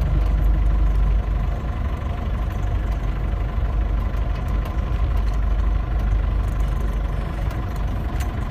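Steady low rumble of engine and road noise heard from inside a moving vehicle.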